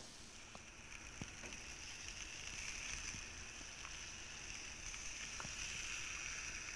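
Beef short ribs sizzling on the grill as they are basted with sauce: a low, steady hiss, with a few faint light clicks.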